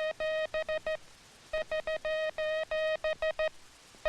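Morse code tone keying SOS (three short dits, three long dahs, three short dits) over and over. The end of one SOS, a short pause, then a complete SOS about a second and a half in, and the next one starting at the very end.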